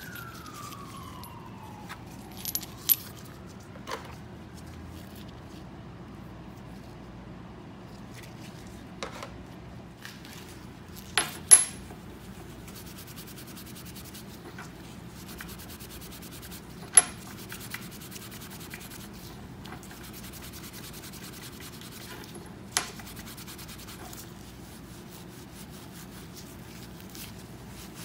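Steel letter stamps clicking and clinking against one another and the steel bench top, a handful of sharp separate clicks, with steel wool scrubbing on a stamp between them.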